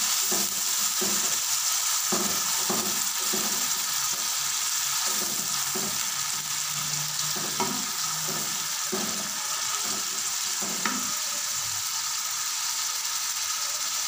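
Chopped onions sizzling in hot oil in a steel pan, turned over by a silicone spatula in repeated stirring strokes about every second.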